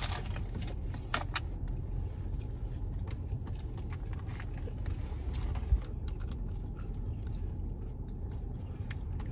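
Small clicks and rustles of food being handled in a paper tray, with chewing, over a steady low rumble of a car cabin. One short, low thump a little past halfway.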